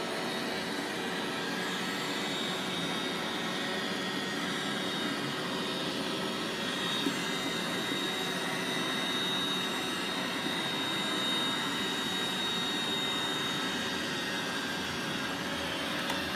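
iRobot Roomba robot vacuum running across a rug: a steady motor and brush hum with a thin high whine over it.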